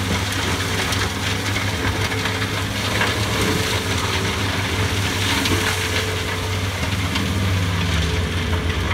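Heavy-duty forestry mulcher working through brush: the engine runs under steady load with a low drone, over the grinding of the mulching head, with a few sharp snaps of wood being shredded.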